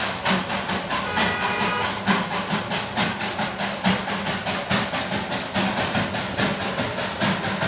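Darjeeling Himalayan Railway toy train running, with an even, rhythmic beat of about four strokes a second. A brief, higher set of tones sounds about a second in.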